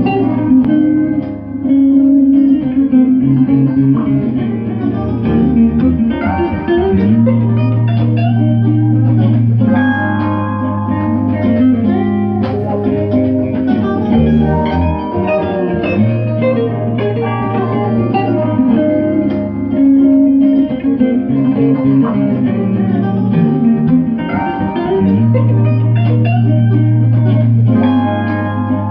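Recorded band music played back over loudspeakers: electric guitar lines over a bass guitar that holds low notes a second or two at a time, stepping between pitches.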